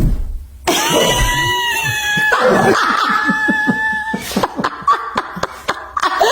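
A long, high call held on one steady pitch for about three seconds, then a person laughing in a quick run of short bursts.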